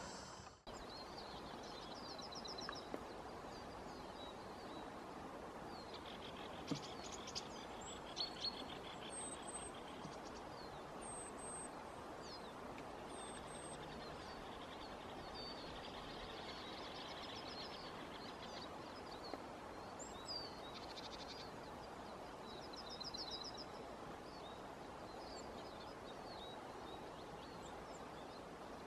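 Faint songbirds calling over a steady outdoor hiss: short, fast high trills and separate chirps and sharp whistled notes now and then.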